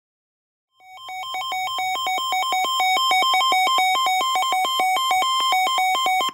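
Electronic emergency-alert attention tone: a loud, buzzy two-pitch warble that flips rapidly between a lower and a higher note. It starts about a second in and cuts off abruptly, signalling that a new warning announcement is about to follow.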